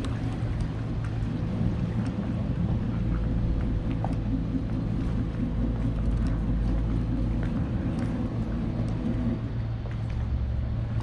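Low, steady rumble of marine diesel engines running as a yacht manoeuvres alongside, growing deeper and stronger for several seconds in the middle, with a few faint clicks.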